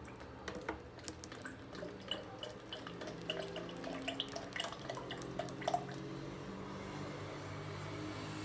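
Cooking oil poured from a bottle into a plastic measuring cup, glugging and trickling as a string of small drip-like pops, over a faint low hum.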